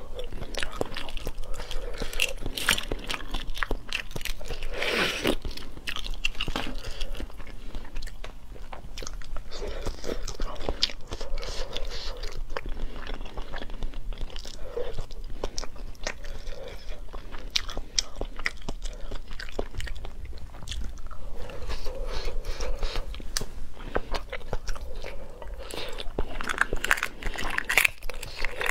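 Close-miked eating: chewing and crunching on huozhuzi, fertilized eggs with developing embryos, as a dense run of short crunches. Near the end, eggshell cracking and being peeled.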